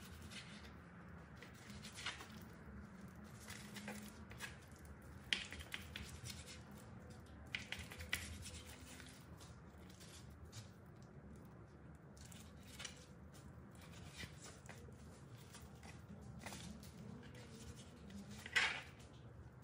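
Kitchen knife cutting raw chicken breast into chunks on a plastic cutting board: soft slicing with scattered light taps of the blade on the board, and one louder knock near the end.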